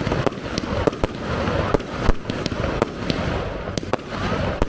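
Fireworks display: a rapid, irregular string of sharp bangs from exploding shells over continuous crackling and hissing.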